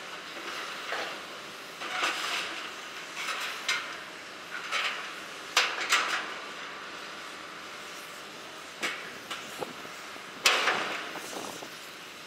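Steel clanking and banging as an excavator's shear attachment cuts up a steel lattice crane jib. The bangs come at irregular intervals, about one every second or so with a gap in the middle, and the loudest comes about ten and a half seconds in.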